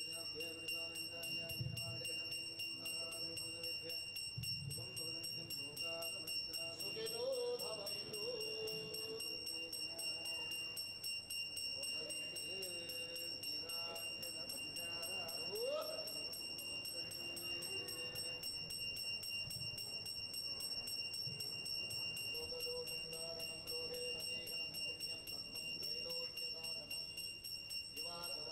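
A hand bell rung rapidly and without pause, giving a steady high ringing tone.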